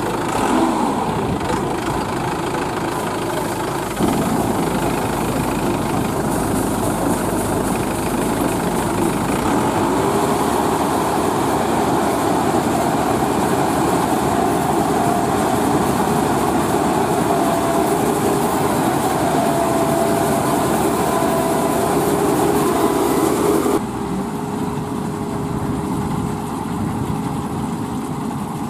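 Crawler combine harvester with a 120 HP engine running, its engine and header and threshing machinery working together in a steady mechanical din with a faint whine. The sound steps up louder about four seconds in and drops back suddenly near the end.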